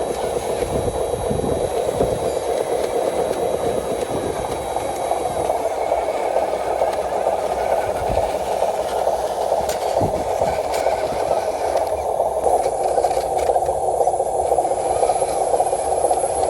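Radio-controlled truck's small electric motor and gearbox running with a steady whirring hum, with a few low knocks and rattles from the model's chassis and load.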